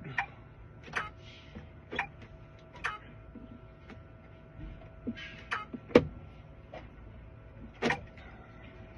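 A series of sharp clicks and knocks, about one a second at first and then scattered, the loudest about six seconds in, over a faint steady hum.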